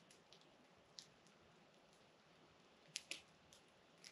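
Near silence with a few faint, sharp pops from a campfire burning down to coals: one about a second in, two close together about three seconds in, and one near the end.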